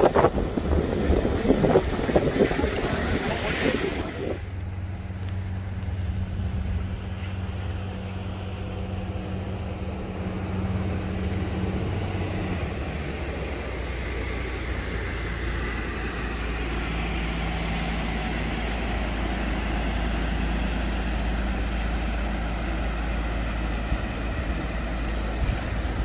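Wind on the microphone and surf breaking on rocks for the first four seconds. Then a steady low engine hum from a small fishing boat's motor, with lighter wind and water noise.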